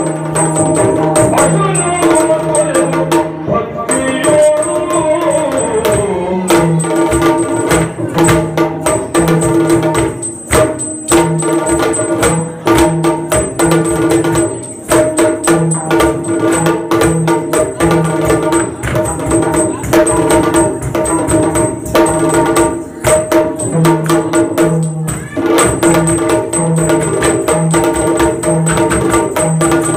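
Yakshagana background ensemble playing for a dance: a hand-played maddale barrel drum beats a fast rhythm over a steady drone, with a constant high metallic jingle. A sung phrase falls in pitch and ends in the first few seconds.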